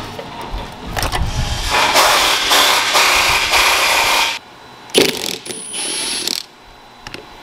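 Engine-bay tool work: a few sharp clicks, then a loud, dense mechanical noise for a couple of seconds that stops abruptly. Near the end, a cordless drill-driver spins for about a second with a high whine, turning a screw in an aluminium oil pump housing.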